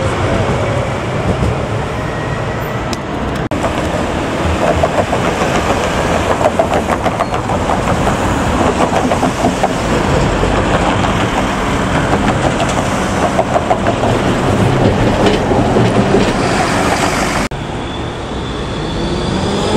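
Articulated low-floor trams running on street track, their wheels clattering rhythmically over the rails, with street traffic noise around them. Near the end an electric traction motor whines rising in pitch as a tram pulls away. The sound breaks off sharply twice.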